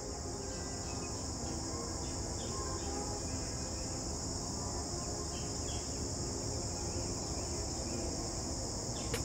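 Steady high-pitched insect chorus of crickets, running unbroken.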